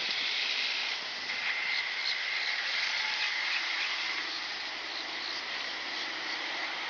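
Steady outdoor ambience of insects trilling continuously, over an even hiss.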